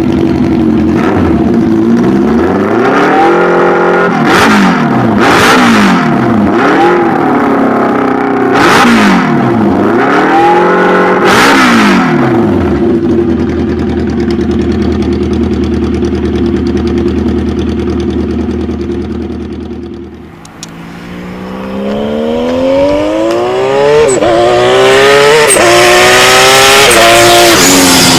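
Old Japanese multi-cylinder motorcycle engine revved several times, its pitch rising and falling, then settling to a steady idle. After a sudden cut, a motorcycle accelerates hard, its pitch climbing with a brief dip or two like gear changes.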